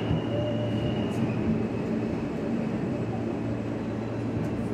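Alstom-built R160A-2 subway car heard from inside as it rolls slowly into the station: a steady rumble of wheels and running gear, with a faint high tone during the first second.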